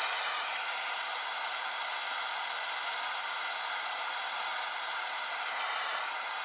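Propane torch burning with a steady hiss, heating a soldered gun sight base to melt off the excess solder.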